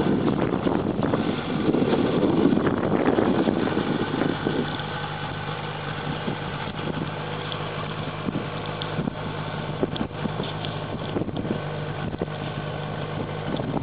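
Boat engine idling steadily at an even low pitch. A louder rushing noise lies over it for the first four seconds or so, then drops away.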